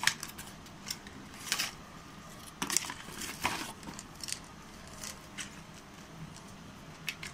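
Paper packaging rustling and a plastic supplement bottle clicking as the bottle is slid out of its carton and handled, with scattered sharp clicks and short scrapes; near the end the bottle's screw cap is twisted off.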